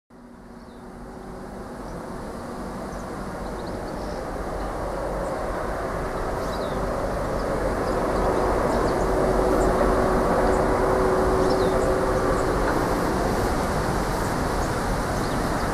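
Class 47 diesel-electric locomotive 47739 approaching with its Sulzer twelve-cylinder engine running, a steady drone over the rumble of the train. It grows steadily louder over the first several seconds, then holds.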